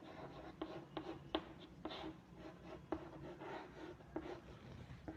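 Faint writing sounds: a series of short, irregular scratching strokes and light ticks of a writing tool.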